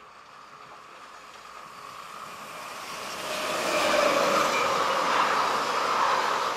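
Passenger train of RRR regional coaches hauled by a BB 22200 electric locomotive passing close by: the rumble and rail noise of wheels on track grow over the first three seconds, then stay loud and steady as the coaches go past.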